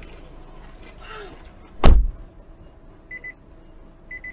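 A car door slams shut about two seconds in. After it, a short electronic double beep repeats about once a second.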